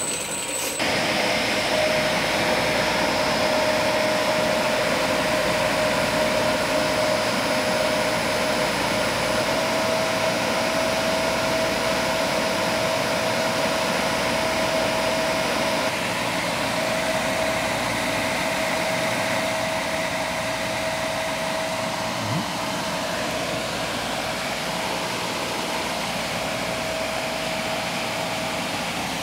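Centrifugal fan driven by an electric motor through a classic V-belt, running steadily at about 3,500 rpm: an even rush of air with a constant whine. There is a faint single click a little past the middle.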